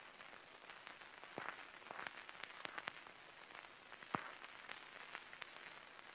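Near silence with faint scattered clicks and crackles over a low hiss, the sharpest click about four seconds in.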